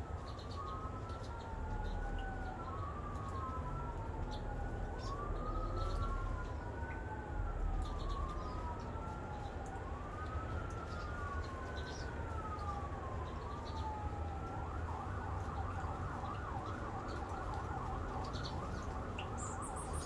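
An emergency vehicle siren wailing, rising quickly and falling slowly about every two and a half seconds, then switching to a fast yelp about three quarters of the way through. Short high bird chirps sound over it.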